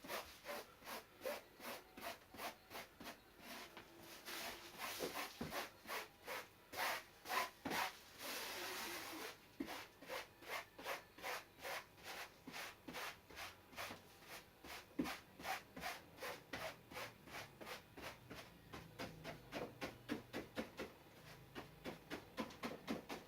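Polyester resin being worked into fibreglass cloth on a surfboard to wet it out: quick rubbing strokes, about two or three a second, with a stretch of continuous scrubbing a little before halfway.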